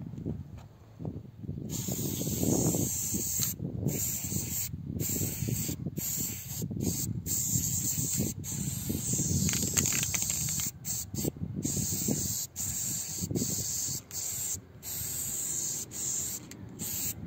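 Aerosol spray paint can hissing in spurts with short breaks between them as graffiti is sprayed, starting about two seconds in, over a low rumble.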